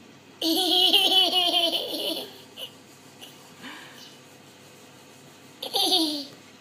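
A toddler laughing: a run of quick, high giggles for about two seconds, then a shorter laugh falling in pitch near the end.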